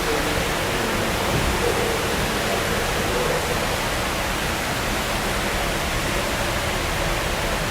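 Steady, even rushing noise with no distinct events, of the kind that running water or air makes.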